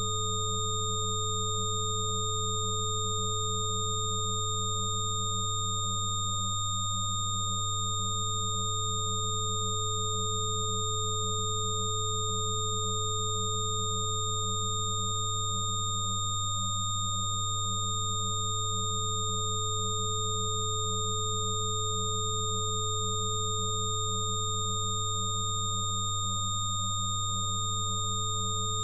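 Synthesized frequency-therapy tones: several steady pure sine tones sounding together, from a low hum up to thin high whistles, held without a break. One of the middle tones fades out briefly three times, about ten seconds apart.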